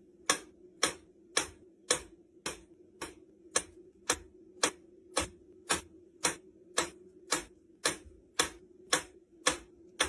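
Even, regular ticking, a little under two sharp ticks a second, over a faint steady hum.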